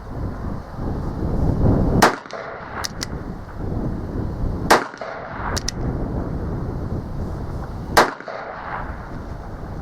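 Uberti 1875 Schofield single-action revolver firing three .45 Long Colt shots, about three seconds apart. A quick double click of the hammer being cocked follows each of the first two shots.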